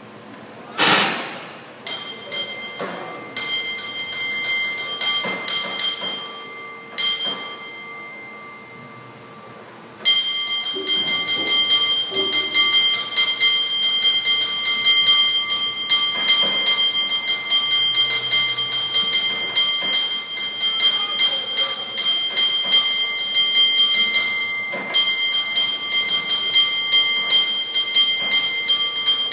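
Cable car bell rung by hand. After a loud knock about a second in come a few scattered strikes. From about ten seconds in it breaks into fast, continuous, rhythmic ringing.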